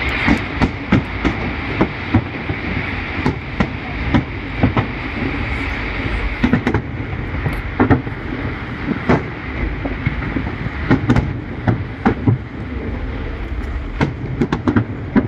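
Fireworks going off: an irregular run of sharp bangs and cracks, several a second at times, over a steady rumble.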